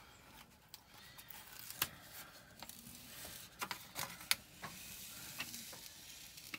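Protective plastic release film being peeled back off the sticky surface of a diamond-painting canvas: light crinkling and rustling with scattered small clicks.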